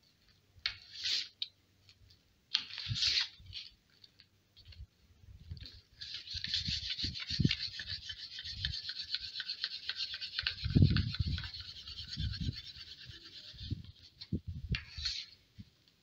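A cotton fire roll with green mint leaves rolled hard back and forth between a flat wooden board and a concrete ledge: fast rasping rubbing strokes, first in short bursts, then continuous for about eight seconds with dull knocks strongest about eleven seconds in. The friction is meant to heat the cotton until it smoulders.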